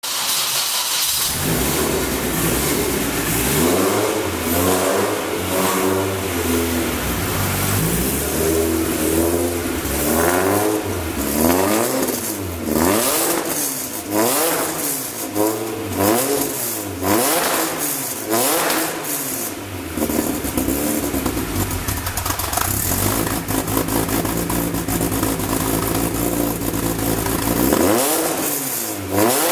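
Exhaust of a Rotrex-supercharged Mini's four-cylinder engine, through a custom 3-inch exhaust, blipped up and down over and over, then settling to a steady idle before one more rev near the end.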